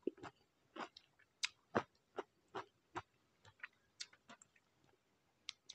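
Faint close-up chewing of a rice vermicelli and raw vegetable salad: a string of short, wet mouth clicks and smacks, irregular, about two a second.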